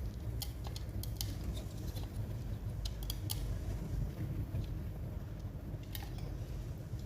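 Scattered light clicks and ticks of small hard laptop parts being handled, over a steady low hum.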